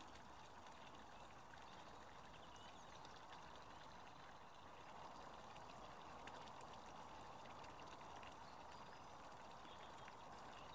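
Near silence: a faint, steady outdoor background hiss with a few faint ticks.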